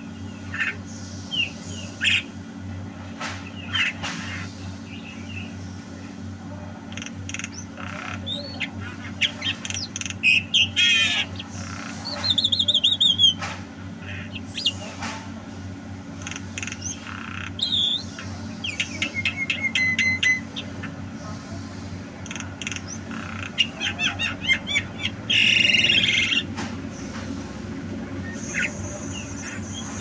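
Javan myna calling vigorously in a varied run of whistles, squawks and rapid chattering notes, with a harsh grating call near the end. A steady low hum sits underneath.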